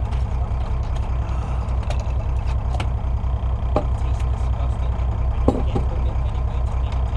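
Fishing boat's engine idling with a steady low rumble, joined by a few sharp clicks and knocks on deck, the loudest about two thirds of the way through.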